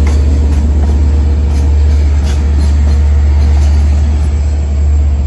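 LIRR DE30AC diesel locomotive's engine running with a steady, loud low drone.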